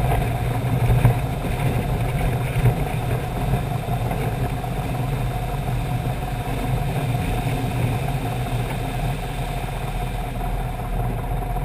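Piper PA-18 floatplane's piston engine and propeller running steadily, heard from outside on the float, with the rush of water along the float beneath it.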